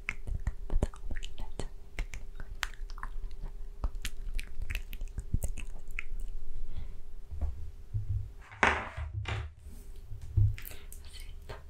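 Close-microphone mouth sounds: a quick run of wet mouth clicks with soft, unintelligible whispering. In the last few seconds, low bumps and a short rustle of handling noise at the microphone.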